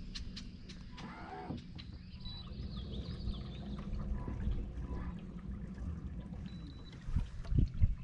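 Water trickling and splashing on a boat over a steady low hum, with scattered light clicks and several dull thumps near the end.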